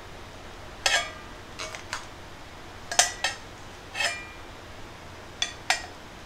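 Rice being served from an aluminium hagama rice pot: a plastic rice paddle and a stainless steel bowl knock against the pot, giving about seven sharp metallic clinks, the loudest about three seconds in.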